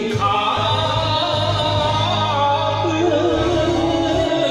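Man singing an enka song into a karaoke microphone over a karaoke backing track, his melody wavering in pitch above a steady bass.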